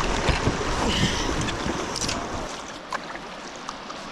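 River water rushing around a kayak, with wind buffeting the microphone until it eases about halfway through, leaving the water sound and a few light clicks.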